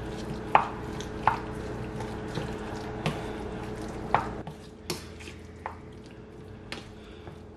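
Wooden spoon stirring and mashing a wet mix of roasted brinjal, shallots and coconut milk in a bowl, with irregular taps of the spoon against the bowl about once a second.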